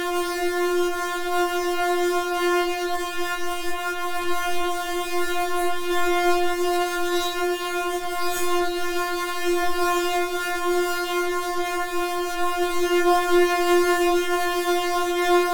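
Synthesizer holding one steady, horn-like note rich in overtones, its loudness wavering slightly.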